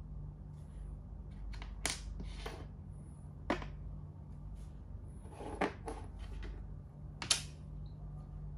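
Makruk (Thai chess) pieces being moved and set down on the board: a handful of sharp clicks, the loudest about 2, 3.5, 5.5 and 7.3 seconds in, over a steady low hum.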